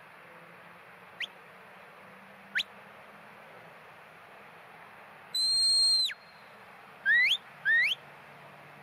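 Sheepdog handler's whistle commands to a working dog: two short rising whistles, then a long held note that falls off at its end, then two quick rising whistles close together.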